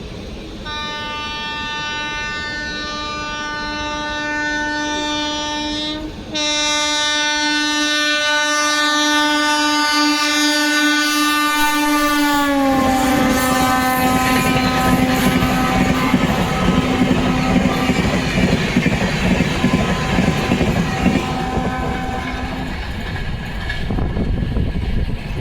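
A WAP-7 electric locomotive on the Shatabdi Express sounds its horn in one long continuous blast as it approaches at about 130 km/h, with a short break about six seconds in. About twelve seconds in, the horn's pitch drops as the locomotive passes. The horn keeps sounding over the loud rush and clatter of the coaches speeding by, then stops a few seconds before the end.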